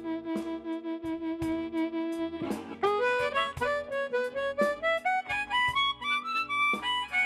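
Blues harmonica played live over a plucked guitar: one long held note for about two and a half seconds, then a run of short notes climbing steadily higher in pitch.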